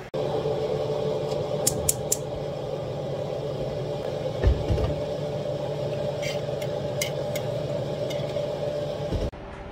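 Cooking at a gas stove: a steady hum runs under light clicks and clinks of cookware. There are three quick clicks near two seconds in, a low thump about four and a half seconds in, and more clicks near the end.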